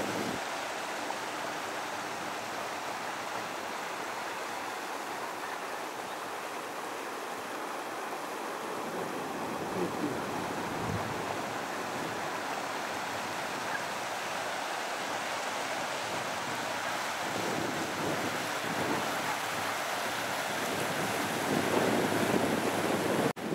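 Floodwater from an overflowing river rushing steadily across a road: a constant, even sound of running water.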